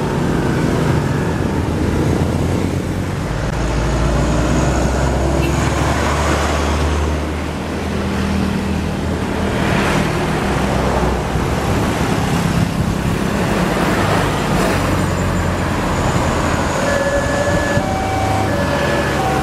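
Road traffic passing close: a stream of motorcycles, cars and trucks driving by, engines running and swelling as each vehicle passes. A few short high tones sound near the end.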